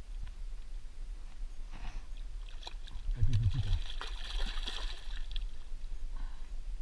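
A hooked carp thrashing in the shallows, splashing and sloshing as it is landed by hand, the splashing heaviest from about two and a half to five and a half seconds in. A short low grunt about three seconds in is the loudest moment.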